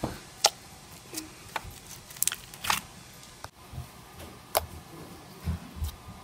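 Green foam-bead slime (floam) being pressed and kneaded with the fingers, giving irregular sharp clicks and pops with soft squishing between them.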